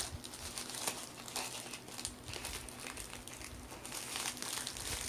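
Plastic packaging of a diamond painting kit crinkling and rustling in irregular bursts as hands struggle to get it open.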